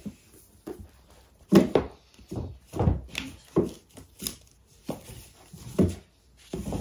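A person moving about and taking books from a shelf: a string of about seven irregular thumps and knocks.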